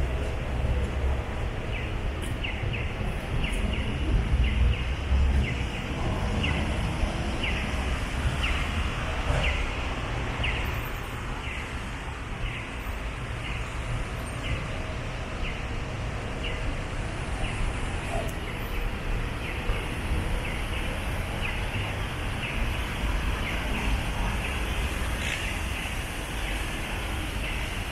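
City street ambience: steady traffic rumble, with a short high tick repeating evenly a little more than once a second.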